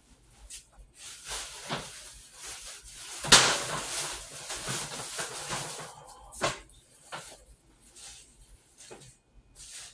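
Kitchen handling noises at the counter: rustling and clatter, with a sharp knock about three seconds in and another about six and a half seconds in.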